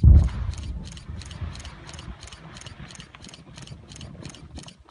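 Blasting charge detonating to clear a rock obstacle: a sudden low boom followed by a rumble that fades over the next few seconds. A regular ticking of about three beats a second runs under it.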